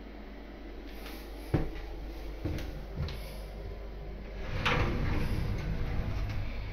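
Glass shower door in its metal frame being handled: a sharp knock about a second and a half in, two lighter knocks, then a louder scraping rattle with a low rumble from about four and a half seconds.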